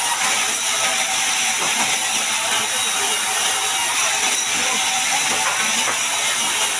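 Sawmill bandsaw cutting a large mahogany log: a loud, steady high hiss of the blade running through the wood.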